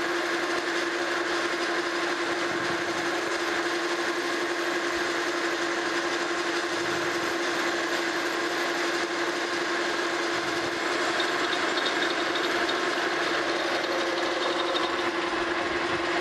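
Monarch Model K metal lathe running with a steady hum while its cutting tool takes a facing cut across the flange of a turned arbor, throwing chips.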